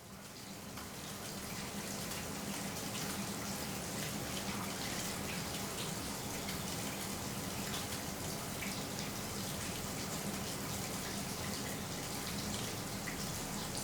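Running shower: a steady spray of water hissing and splattering in a small tiled room, fading in over the first couple of seconds.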